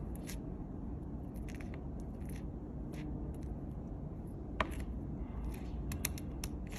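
Metal spoon spreading mashed avocado onto toasted baguette: short, scattered scrapes of the spoon against the crisp toast, over a steady low background rumble.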